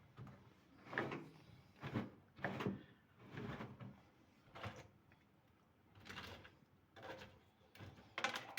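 Faint, short scraping strokes, irregularly spaced about once a second, as caked mud is cleared out from under the wash tub of a twin-tub washing machine.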